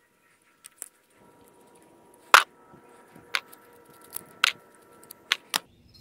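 A string of sharp small metallic clicks and taps as the screws are backed out and the metal cover is lifted off a Honda ATV's thumb-throttle housing; about seven clicks come in the last four seconds, the loudest about two seconds in.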